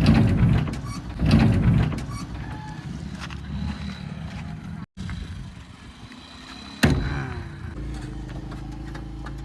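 JCB 3DX backhoe loader's diesel engine running under working load, with two loud surges in the first two seconds and a sudden loud knock about seven seconds in.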